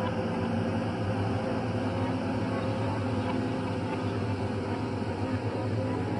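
Horror ambience drone: a steady low hum of several held tones over a layer of hiss, with no change in level.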